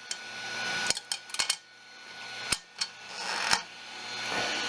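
Sharp clicks and clatter of hard plastic 3D-printed parts being taken off the printer's build plate and handled, about half a dozen knocks spread over a few seconds, with a faint hiss behind.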